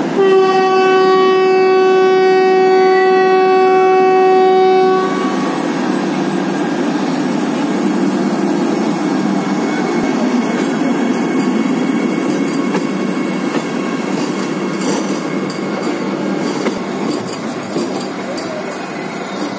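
Vande Bharat train sounding one long, steady horn blast of about five seconds, followed by the steady rolling noise of its coaches' wheels on the rails as it moves along the platform.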